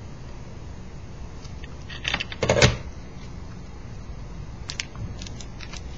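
A quick cluster of clicks and knocks about two seconds in, then a few light ticks near the end, over a steady low hum: tools and solder being handled at a stained-glass soldering bench.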